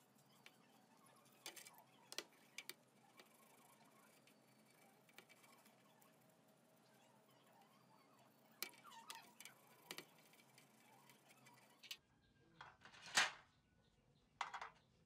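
Faint brush scrubbing on small rusty metal model parts in a basin of cleaning liquid, with scattered light clicks and scrapes. Near the end, parts are set down on a metal tin lid: a few sharp clinks, the loudest one a little over a second after the scrubbing stops.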